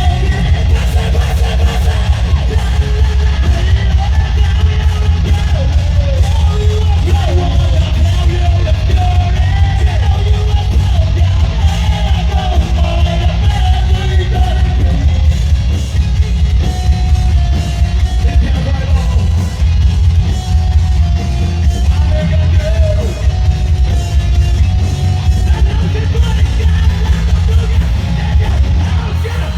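Live heavy rock/metal band playing loudly, with singing and yelled vocals over a heavy, pounding bass.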